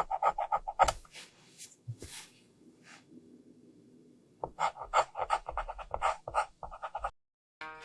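AI-generated dog panting rapidly, about five quick breaths a second. It stops about a second in and starts again after a pause of a few seconds.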